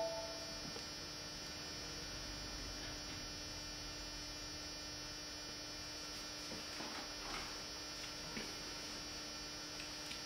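Steady, faint electrical hum with a thin whine of many even overtones, and a short electronic beep right at the start.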